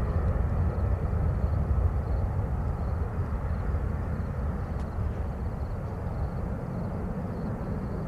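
Avro RJ100's four Honeywell LF507 turbofan engines climbing away after takeoff: a low, steady jet rumble that slowly fades as the aircraft recedes.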